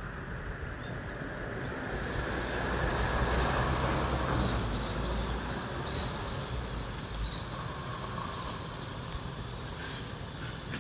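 Small birds chirping, many short high notes, over a low rumble that swells for a few seconds and then fades.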